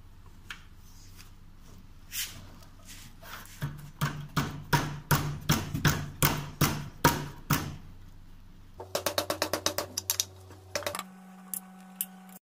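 Sharp metallic clicks, about two or three a second, then a faster run of clicks, as a hex box spanner works the scooter's front axle nut loose.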